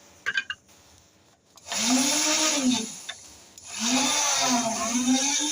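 Electric drill motor of a homemade bee-frame drilling machine running in two bursts, each spinning up and winding back down, with a few short clicks near the start.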